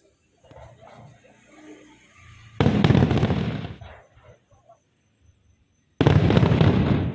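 Fireworks going off: two loud bangs about three and a half seconds apart, each trailing off in a rumble for about a second.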